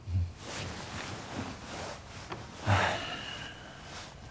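Soft breathing and nasal exhales from a cuddling couple, with two louder breathy bursts: one at the start and one about two and a half seconds in.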